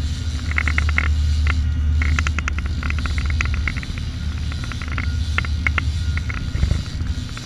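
Steady low rumble of a boat's engine, with scattered bursts of quick sharp clicks.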